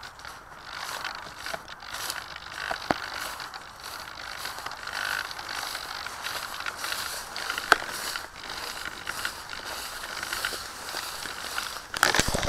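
Handling noise on a foam flying-wing model as it is carried by someone walking: steady rustling and scraping of the airframe against a knitted jumper, with scattered sharp clicks and a louder clatter of knocks near the end.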